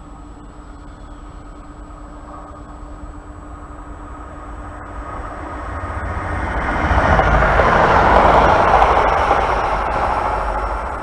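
Electric multiple-unit passenger train approaching and running past on the track: a rumble and rail noise that build from about five seconds in, are loudest around eight seconds, then begin to fade.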